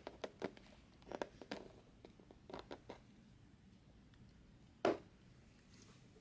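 Faint handling noises from a trading-card case and its packaging: scattered light clicks and rustles, with one louder knock about five seconds in.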